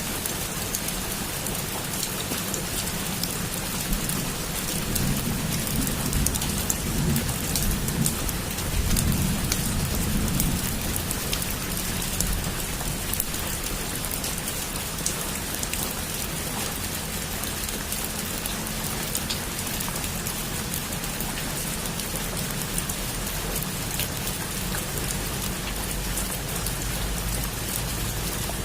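Heavy rain falling steadily, with a low rumble of distant thunder between about four and eleven seconds in.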